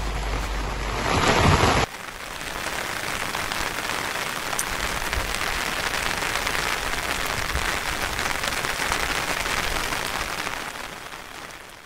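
Steady hiss of rushing water, changing abruptly about two seconds in, then fading out near the end.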